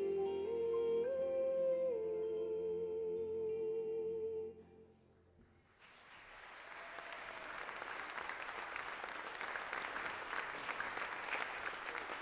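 Choir and orchestra hold a final chord while a solo female voice steps up through a few last notes and settles. The music cuts off about four and a half seconds in, and after a short pause an audience starts applauding, the applause swelling and continuing.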